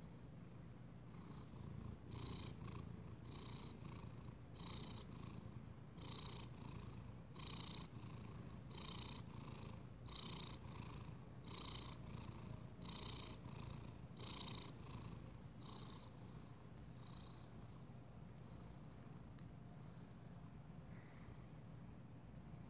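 Domestic tuxedo cat purring close to the microphone: a faint, steady low rumble. A softer, higher sound recurs about every second and a half through the first two-thirds, then fades.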